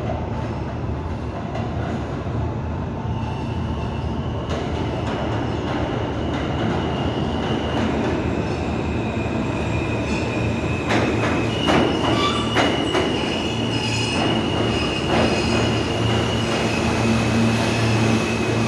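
An Alstom-built R160A subway train approaches through the tunnel and pulls into the station, with a steady low rumble that grows louder as it nears. High steady whines rise over it, stronger once the train is close. A quick run of clicks over rail joints comes as the front reaches the platform.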